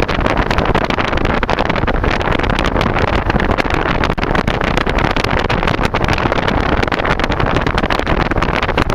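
A moving car's wind and road noise, filmed near the car's side window: a loud, steady rush that runs on without a break.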